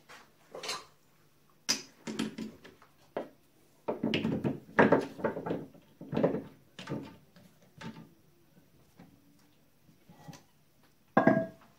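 Metal clanks and knocks of a cast iron slug being seated in a lathe chuck and the chuck key turned to tighten the jaws: irregular knocks, thickest in the middle, and one louder ringing clank near the end.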